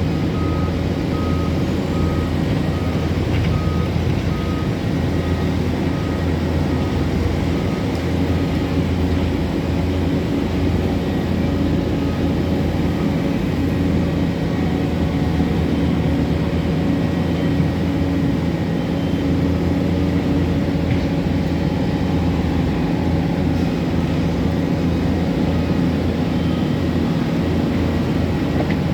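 Heavy diesel road-construction machinery running steadily. A reversing alarm beeps about twice a second, stopping about nine seconds in.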